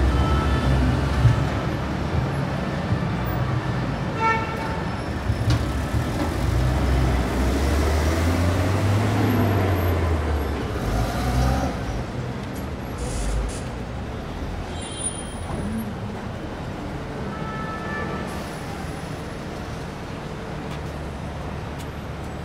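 City street traffic: car and bus engines passing close, with a deep engine rumble that swells and falls away about halfway through. A couple of brief high squeaks cut through, and the traffic eases off somewhat toward the end.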